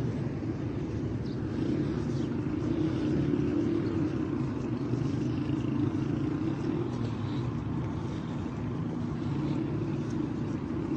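Steady low outdoor rumble with a faint hiss above it.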